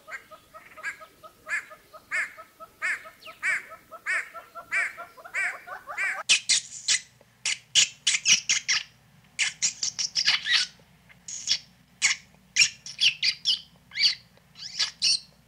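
Animal calls: for about six seconds a short call repeats about every two-thirds of a second over a rapid, lower trill, then a denser run of sharp, high-pitched calls over a faint low hum.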